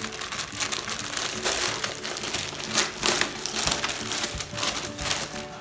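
Protective plastic packaging being pulled off and crumpled by hand, a continuous crinkling with many irregular sharp crackles.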